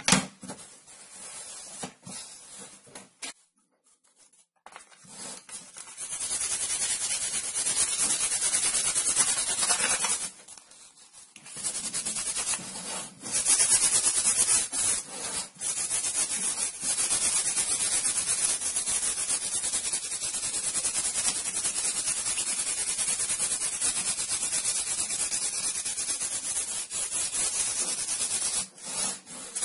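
Sanding block rubbed back and forth by hand over a cut plywood fretwork panel: a steady scratchy rasp with a couple of brief pauses. It opens with a single knock and some quieter handling of the board before the sanding gets going.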